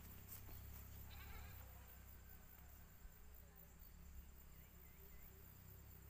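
Faint chirps from a small bird: a brief cluster of thin calls about a second in, and three short chirps near the end.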